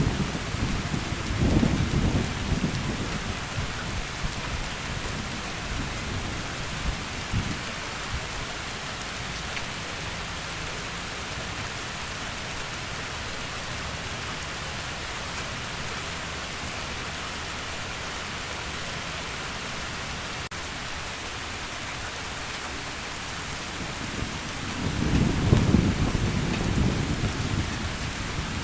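Heavy rain falling steadily, with rolls of thunder rumbling in the first few seconds and again near the end.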